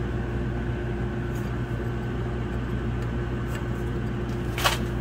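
Wrench on a brake caliper's bleeder screw, giving one sharp metallic click near the end as the screw is cracked loose, over a steady mechanical hum.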